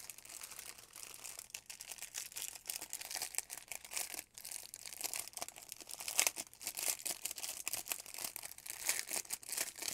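Clear plastic bag packed with small bags of diamond painting drills crinkling as hands work it open, many quick irregular crackles throughout.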